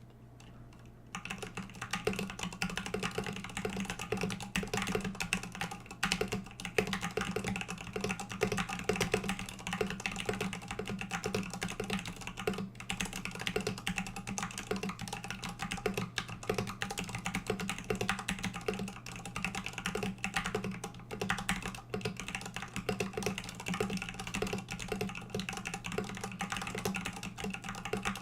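Mechanical keyboard being typed on: vintage Cherry MX Black linear switches on a steel plate in an acrylic case, with MT3 PBT dye-sub keycaps. A fast, steady stream of keystrokes begins about a second in.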